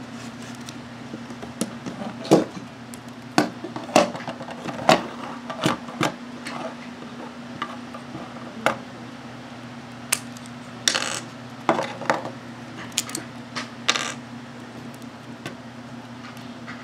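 Plastic Lego bricks and plates clicking as they are handled and pressed together: a string of irregular sharp clicks, over a steady low hum.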